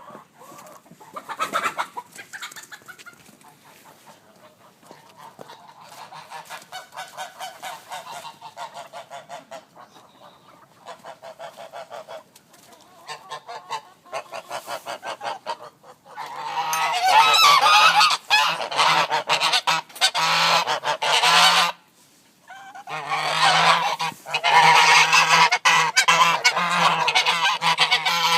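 Pomeranian geese honking in fast, repeated runs. The honks are fainter through the first half, then turn loud in two long bouts separated by a short pause.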